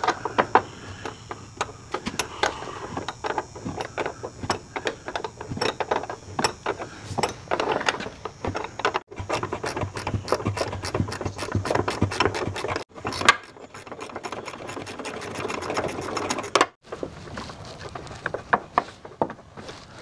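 Ratchet wrench clicking in quick runs of rapid ticks as a door-hinge bolt is backed out.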